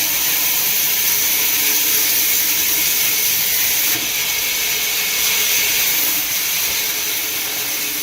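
Heavy wood-cutting machinery running with a loud, steady hiss, with a brief change about four seconds in.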